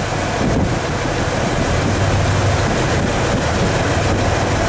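Wind buffeting the microphone in a steady loud rush, with a steady low hum underneath.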